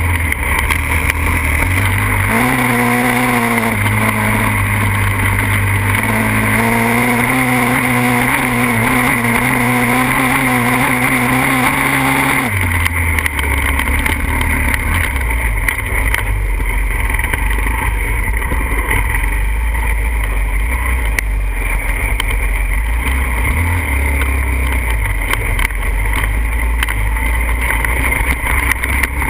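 Pitster Pro 140cc pit bike's single-cylinder four-stroke engine running under way, its pitch rising and falling with the throttle. About twelve seconds in the engine note drops suddenly and it runs on lower and steadier.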